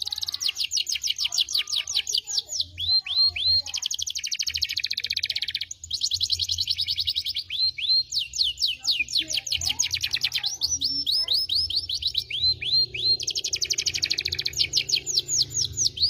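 Domestic canary singing a long, fast song: runs of quick falling whistled notes alternating with dense rolling trills, broken only by brief gaps.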